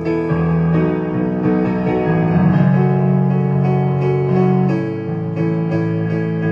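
Solo instrumental music: a melody played over held low notes, without singing.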